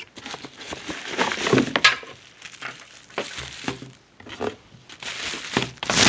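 Plastic packaging crinkling and rustling in irregular bursts with small clicks as a boxed gaming headset is unwrapped by hand, getting louder near the end.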